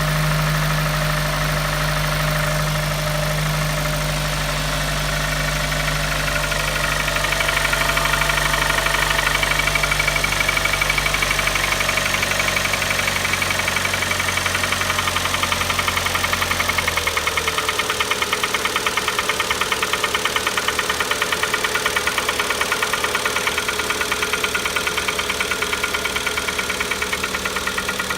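Kia Optima petrol engine idling just after starting, with a rapid, even knock running through it. The engine speed drops a little over halfway through and the knock stands out more. The knock at startup is a fault that ended in the engine being replaced under warranty.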